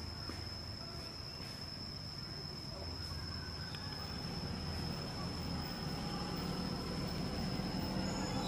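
Steady high-pitched insect drone, with a low motor rumble underneath that grows louder toward the end.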